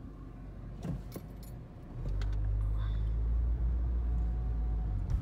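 Car heard from inside the cabin: a soft hum with a few light clicks, then about two seconds in a low engine and road rumble swells as the car picks up speed.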